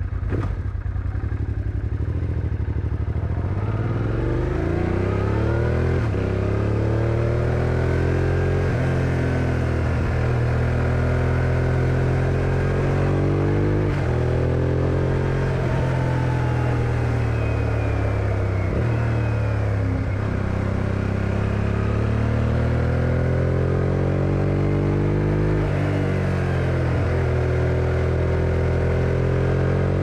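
1999 Suzuki SV650S's 645 cc V-twin pulling away from a slow, lumpy beat, then accelerating along a road, the engine note rising with the revs and dropping again at each gear change or roll-off, several times over.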